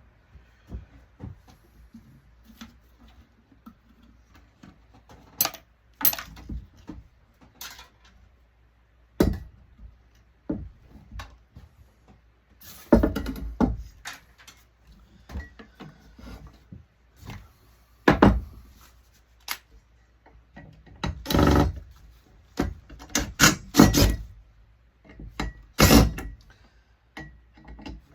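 Scattered clicks, knocks and clatters of hand tools and metal parts as an HPS digital ballast is taken apart for scrap, with louder bursts of handling now and then.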